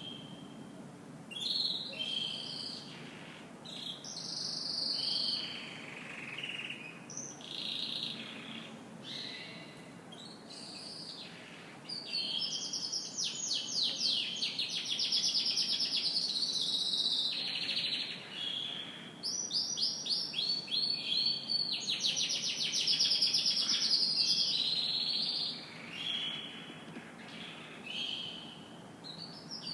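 Domestic canary singing: short varied phrases, then two long rapid trills, the first about twelve seconds in and the second about nineteen seconds in.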